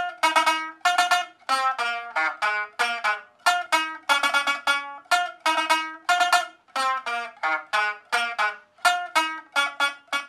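Instrumental music: a plucked string instrument playing a quick melody of separate notes that each die away fast, about two to three notes a second, stopping right at the end.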